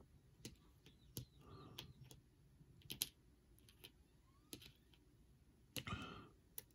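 Faint, scattered clicks and taps of wargame counters being picked up and set down on the map, about half a dozen over several seconds as a unit is moved back in retreat.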